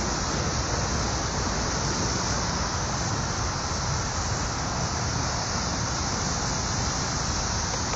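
Steady, unbroken chorus of 17-year periodical cicadas: a dense drone of countless insects singing at once, even in level throughout, over a low rumble.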